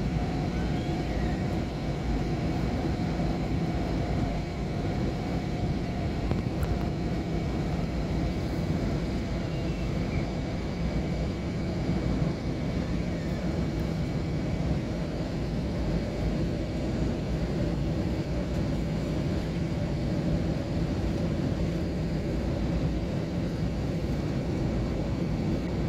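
Steady cabin noise inside an airliner descending on approach: a constant rumble of engines and rushing air, with a faint high steady whine over it.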